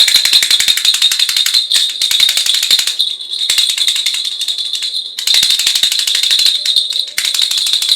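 Plastic toy rattling with rapid, dense clicks in about five bursts of one to two seconds each, separated by short pauses, with a steady high ring over them.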